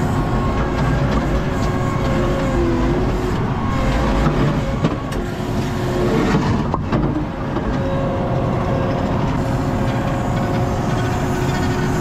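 ASV RT-40 compact track loader's diesel engine and hydraulics running steadily under load, heard from inside the open cab, while the bucket scoops broken concrete and the machine carries it to a dumpster.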